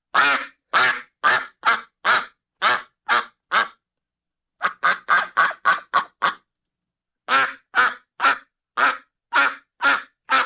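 Duck quacking: three runs of rapid, evenly spaced quacks separated by pauses of about a second.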